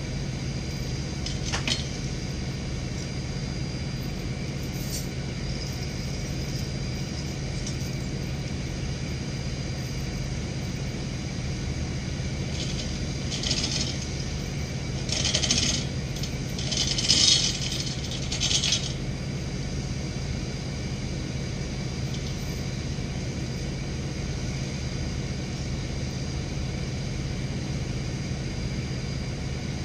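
1996 bucket truck's engine running steadily while it works the log boom, with a sharp click about two seconds in and several brief bursts of higher-pitched metallic clatter in the middle.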